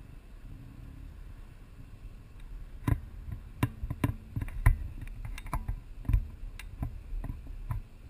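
Low wind rumble on the microphone, then from about three seconds in a run of irregular sharp clicks and knocks, about two a second, from handling close to the camera.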